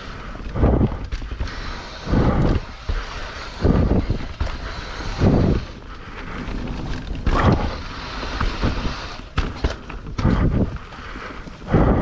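Mountain bike riding on a wet trail: wind buffets the microphone in strong low gusts about every second and a half, over steady rolling noise and scattered light knocks from the bike.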